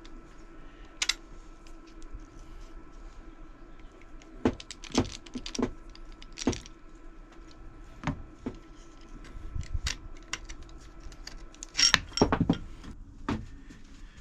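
Scattered metallic clinks and knocks of a hand crimping tool and copper cable lugs being handled, with a quick cluster of louder clanks near the end.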